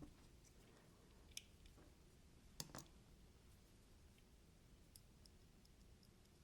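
Near silence broken by a few faint clicks and taps of small hand tools and parts being handled, the loudest about two and a half seconds in.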